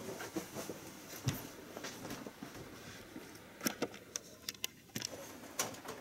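Quiet room tone with a few light knocks and clicks scattered through it, most of them in a cluster from about three and a half to six seconds in.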